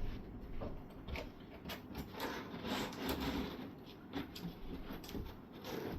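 Cardboard scraping and rubbing as a 10 mm cardboard backing sheet is slid into the slots of a cardboard wardrobe, with scattered light knocks and clicks.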